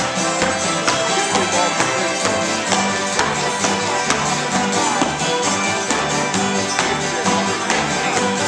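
An acoustic string band of fiddles, guitars and upright bass plays a tune together with a steady beat. Dancers' shoes tap in time on a wooden floor.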